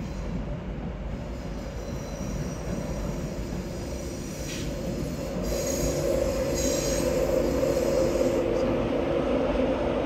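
A train moving through a station, its rumble getting louder from about halfway through, with a few brief high-pitched squeals near the middle and a steady hum in the second half.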